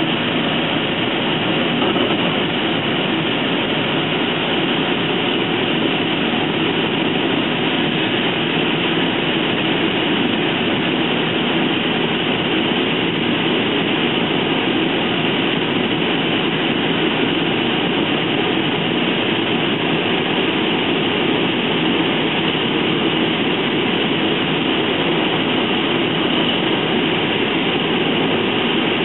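Steady rumble and rattle inside an NJ Transit Multilevel (MLV) bilevel coach running at speed on the track.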